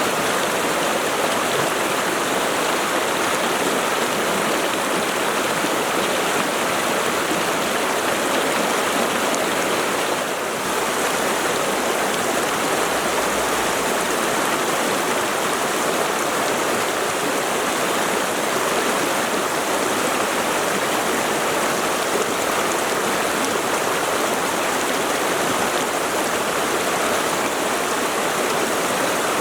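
Mountain stream water flowing steadily, a dense, even rush of moving water, with a brief dip in level about ten seconds in.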